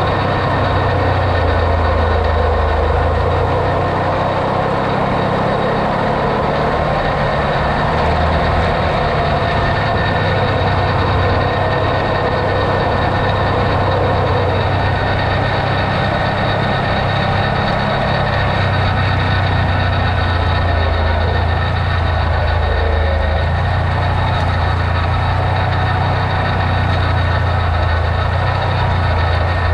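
Off-road vehicle's engine running with a steady low drone.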